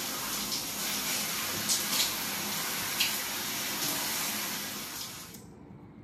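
Handheld shower head spraying water onto hair, a steady rush of running water with a few brief splatters, cutting off abruptly about five seconds in.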